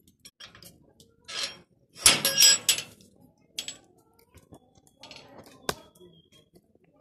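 Padlock and metal gate clinking and rattling as the lock is handled, loudest for a second about two seconds in, with one sharp click near the end.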